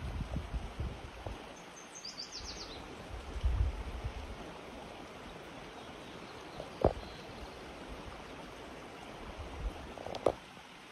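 Outdoor ambience with a low wind rumble on the microphone and a short, rapid, high bird trill about two seconds in. There are two sharp knocks, one midway and one near the end.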